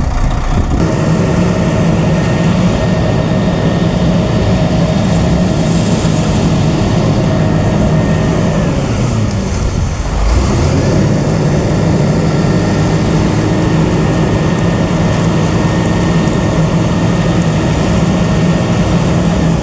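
A machine engine running steadily; about halfway through it dips in pitch and loudness, then picks back up.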